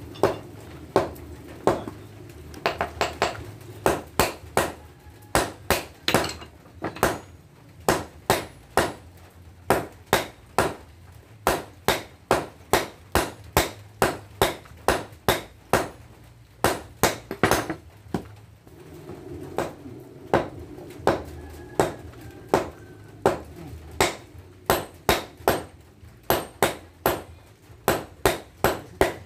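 Hand-forging red-hot excavator breaker chisel steel on an anvil: a sledgehammer and a hand hammer strike in turn in a steady rhythm, about two to three ringing metallic blows a second, with a brief break about two-thirds of the way through. A low steady hum runs underneath.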